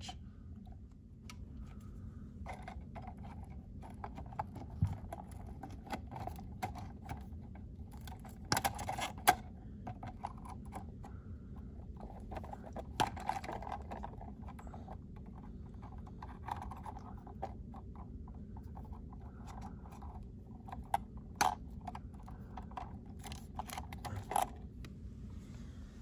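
Wire cutters snipping the copper house wires off a burned-out electrical outlet close to its body, heard as scattered sharp snips and metallic clicks with handling of the outlet and wires between, over a faint low hum.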